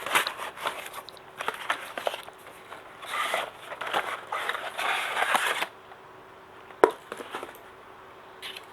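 Packaging being handled and worked open: irregular crinkling and scraping rustles for about the first six seconds, then a single sharp click near the seventh second.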